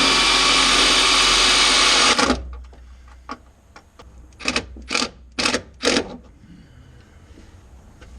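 Power drill running at speed for about two seconds, then stopping suddenly, followed by about five short sharp clicks.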